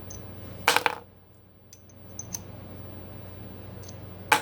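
Loose steel-cased cartridges clinking together as they are sorted by hand: a quick cluster of metallic clicks about a second in, a few light ticks, then another cluster near the end.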